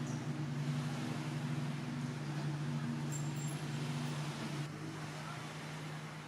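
Superyacht's engines running steadily as it manoeuvres out of port: a low, even drone over a broad hiss, whose upper hum fades about two-thirds of the way through.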